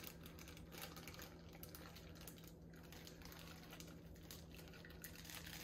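Faint trickling and dripping of water running out of a plastic bag into a glass fishbowl as a pet fish is released into it.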